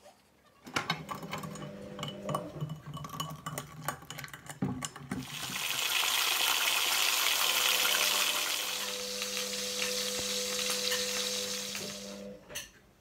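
Kitchen clatter of a pan and utensils, then from about five seconds in, thin slices of meat sizzling loudly in a hot frying pan for several seconds before the sizzle stops; a single knock near the end.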